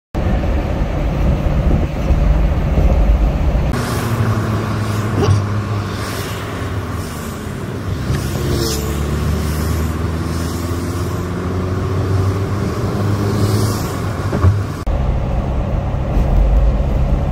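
A car driving on a highway, heard from inside: a steady low engine-and-road rumble. From about four seconds in until near the end, the sound changes to a hissier stretch of tyres on a wet road, with the engine pitch gently rising and falling.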